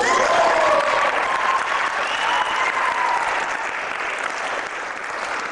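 Audience applauding and cheering. The clapping breaks out suddenly right after a spoken line, with a few shouts over it in the first seconds, and eases slightly toward the end.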